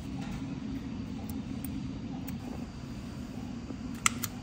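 A surgical skin stapler fires into the edge of the incision, making two sharp clicks about four seconds in, over a steady low hum.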